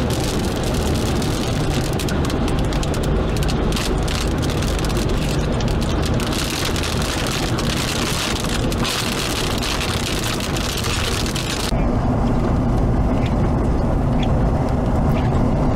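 Wind rushing over the microphone with a low vehicle rumble and scattered ticks of rain. About twelve seconds in, it cuts abruptly to the steadier, duller road noise and engine hum of a car driving.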